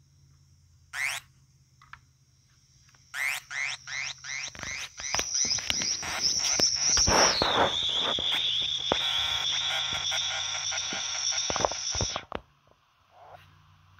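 Korg Monotron Delay analog synthesizer played on its ribbon keyboard: a run of short rising chirps, then a high held squealing tone that drops to a lower pitch partway through and cuts off suddenly near the end.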